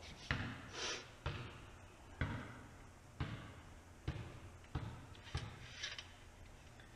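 Motorcycle fork tube from a Marzocchi 48mm fork bumped down onto a workbench again and again, about once a second, each a dull thump with a short ring of metal after it, as the spring is worked loose inside.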